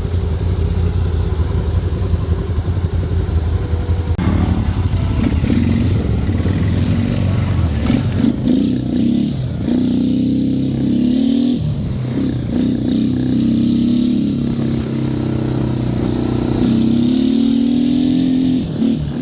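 Can-Am Outlander 850 V-twin ATV engine idling steadily, then revving up about four seconds in and running under way on a test ride, its pitch rising and falling with the throttle.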